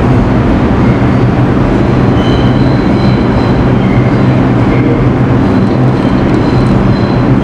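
New York City subway train running in the station: a loud, steady rumble and hum, with faint high wheel squeals now and then.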